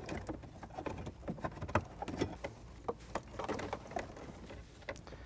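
Irregular small clicks, taps and rustling of wiring harness connectors, cables and small plastic modules being pushed and handled behind a car dashboard.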